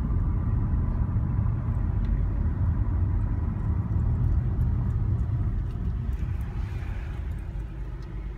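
Low, steady rumble of a car heard from inside the cabin while driving, with engine and road noise that eases off over the last couple of seconds as the car slows.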